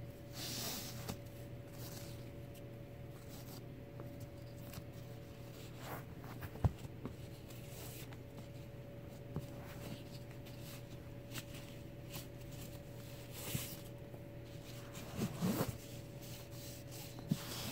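Satin ribbon being untied and pulled off a cardboard gift box: soft rubbing and swishing of ribbon over the box, with a single light tap partway through. A faint steady hum lies underneath.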